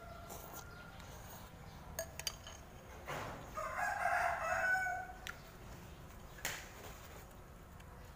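A rooster crowing once in the background: a single pitched call of about two seconds, starting about three seconds in.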